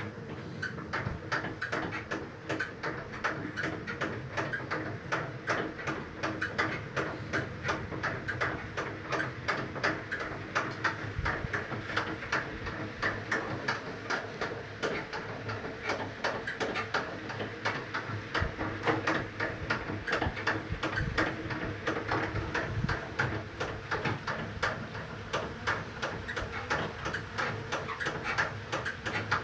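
Centrifugal honey extractor spinning honeycomb frames in its metal drum. It makes a steady hum under a fast, even clatter that repeats several times a second.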